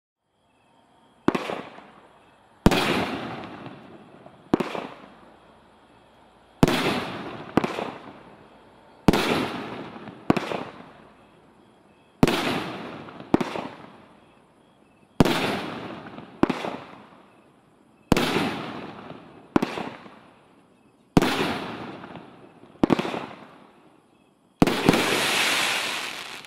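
Brothers Pyrotechnics 'Honky Tonk Town' 500 g nine-shot firework cake firing. Sharp reports come in pairs about a second apart, a pair every three seconds or so, each ringing off in an echoing tail. The last one, near the end, is followed by a long crackle.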